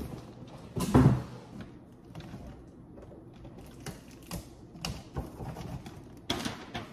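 Gift-wrapping handling noises: a box is bumped about a second in, followed by scattered light clicks, taps and a brief rustle as it is packed and wrapped.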